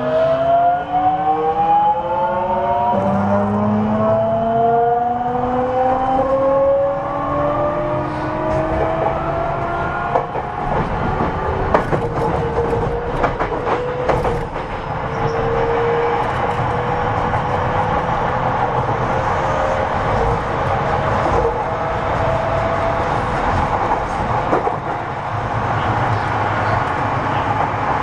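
Onboard sound of a JR 207 series 1000-subseries electric train's motor car accelerating: the inverter and traction motor whine climbs in pitch as several tones rising together, then settles into a steadier tone about halfway through. The running rumble continues underneath, with a few sharp knocks from the running gear between about 10 and 14 seconds.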